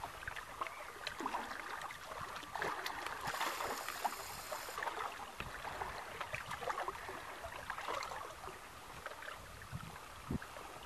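Small waves lapping and gently splashing at the water's edge, a continuous soft wash dotted with little clicks and drips.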